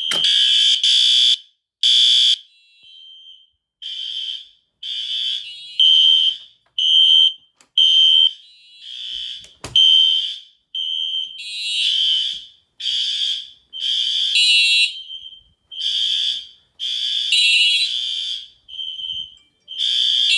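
Several fire alarm horns, Mircom and System Sensor SpectrAlert, sounding in alarm on a conventional fire alarm system set off by a manual pull station. They sound a high-pitched tone in on-off pulses of about a second, overlapping unevenly because the horns are out of step with one another.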